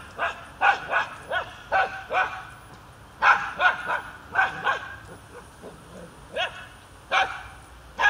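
Small dog barking repeatedly at a Canada goose: sharp barks in quick runs of about two to three a second, a short lull, then a few spaced barks near the end.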